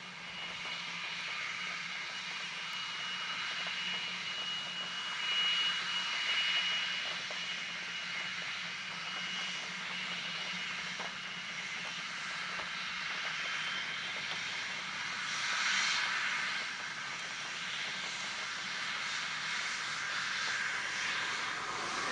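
Jet engines of a Boeing 777 running at low taxi power: a steady whine over a rushing noise, with a thin high tone for the first half, swelling briefly twice.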